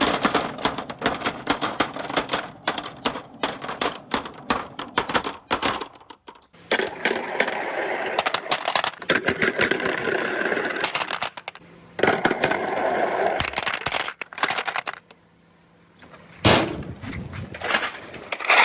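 A large number of marbles clattering and rolling along a marble run: a dense stream of rapid clicks, thickening into a continuous rolling rattle from about six seconds in, with a brief lull near the end.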